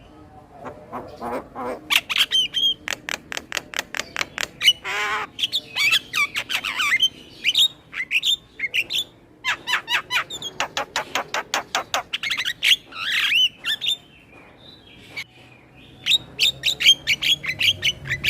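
Male Javan myna singing a varied song: runs of rapid clicking chatter, harsh squawks and warbling whistled notes, with a short pause about two-thirds of the way through.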